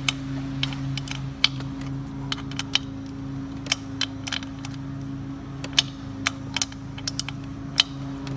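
Irregular metallic clicks, about one or two a second, from a wrench working the chain adjuster bolts on a Kawasaki KX65 dirt bike's rear axle as the drive chain is tightened. A steady low hum runs underneath.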